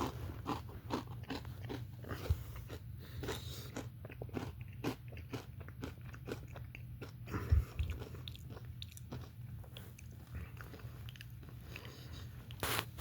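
A person chewing and biting crunchy, well-done fried potatoes close to the microphone, with irregular crunches. A steady low hum runs underneath, and there is one louder low thump about seven and a half seconds in.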